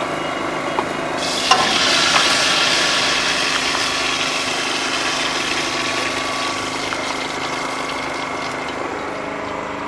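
Hot oil sizzling in a wok over a gas burner, starting suddenly about a second in and slowly dying down, over a steady machine-like hum.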